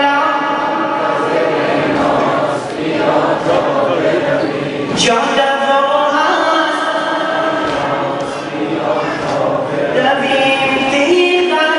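A group of men chanting a Shia mourning lament (noha) in unison, holding long sung notes. A single sharp slap cuts through about five seconds in.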